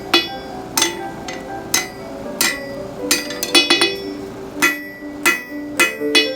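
Blacksmith's hammer striking steel on an anvil, about a dozen ringing blows at an uneven pace, with a quick run of lighter taps about three and a half seconds in. Background music plays underneath.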